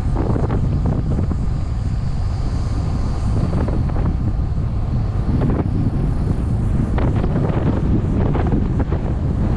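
Heavy wind buffeting the microphone while moving fast downhill on a road: a steady low rumble, with a few faint irregular ticks.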